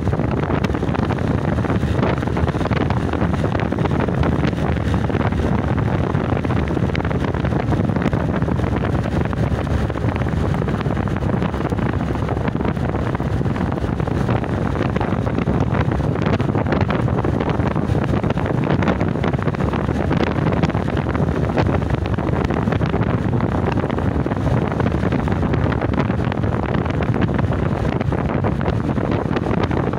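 Steady wind rushing over the microphone of a motorcycle ridden at about 45 km/h, with the bike's engine running underneath.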